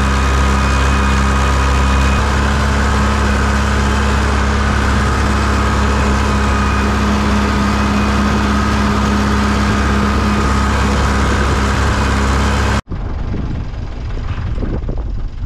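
Tractor engine running at a steady speed with an even, unchanging pitch. About thirteen seconds in, it cuts off abruptly to a much quieter outdoor background.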